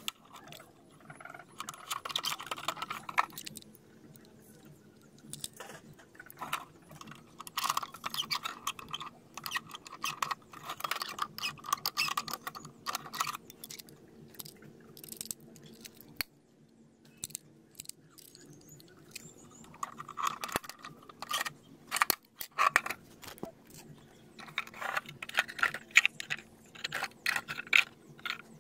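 Small metal bolts, nuts and hinges being handled against PVC pipe rings: a string of irregular clicks, clinks and rattles, with short bursts of scraping. A faint steady hum runs underneath.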